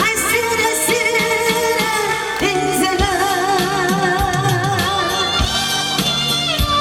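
Backing track of a slow Korean trot song in an instrumental break: a wavering, vibrato melody line over a steady drum beat.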